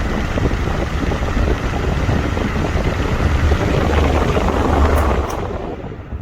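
VENTISOL 20-inch three-speed wall-mount fan running, its airflow making a loud steady rush with a low buffeting rumble on the microphone. The sound fades away over the last second.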